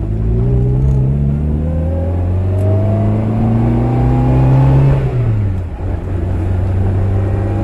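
Fiat 1500 convertible's 1.5-litre four-cylinder engine pulling through a gear, its pitch rising steadily for about five seconds. The revs then drop sharply with a brief dip in loudness as the driver shifts up, and the engine settles into a steady cruise.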